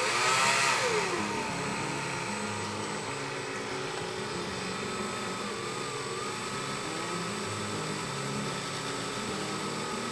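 A small handheld rotary tool spins up and runs with a steady whine while trimming a die-cast toy truck part. Its pitch dips briefly about halfway through as it bites into the work.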